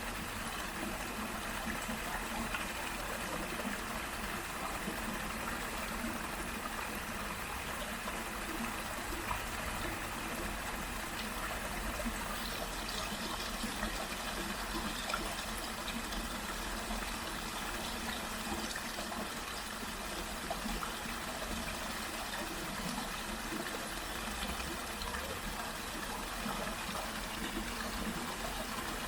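Small waterfall and murmuring stream: water falling and trickling steadily.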